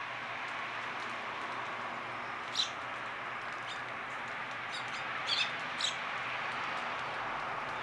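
A few short, high bird chirps, the loudest about a third of the way in and a cluster past the middle, over a steady background hiss.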